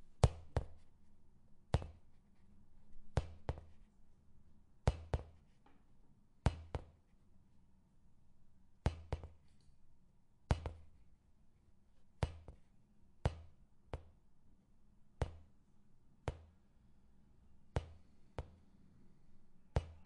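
Soccer ball bouncing on a hard surface: a series of sharp thuds, each with a short low boom, coming every second or two and often as quick double bounces.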